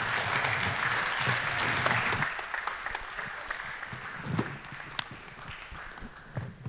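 Audience applauding, loudest for the first couple of seconds and then thinning out and dying away.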